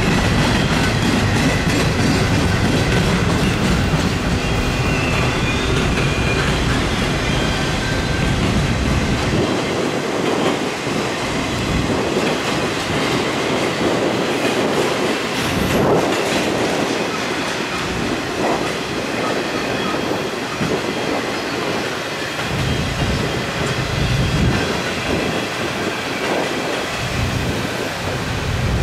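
Intermodal freight train rolling past, its steel wheels running on the rails in a continuous rumble and clatter. The deep rumble eases about a third of the way in and comes back in bursts later.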